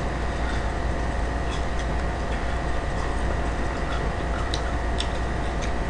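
Steady low hum and hiss of room noise, with a few faint, scattered light clicks as food is handled at the table.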